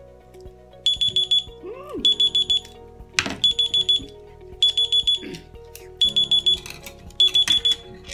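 Digital countdown-timer alarm beeping in groups of four quick high beeps, repeating about once a second, signalling that the timed eating challenge is up. Background music plays underneath.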